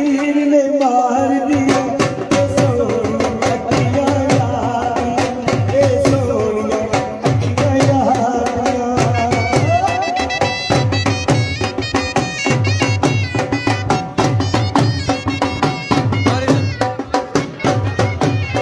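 Live Punjabi folk music: a dhol beats a steady rhythm while a man sings a bending melody into a microphone.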